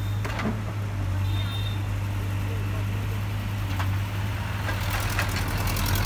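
A Case backhoe loader's diesel engine runs with a steady low drone as the machine digs. A few sharp knocks sound over it, about half a second in, near four seconds and after five seconds.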